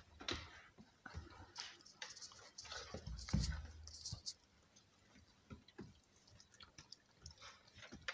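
Two puppies play-fighting, with soft mouthing and chewing sounds and small irregular clicks and scuffles of paws and claws on a wooden floor. A dull thump about three seconds in is the loudest sound, and the scuffling thins out after about four seconds.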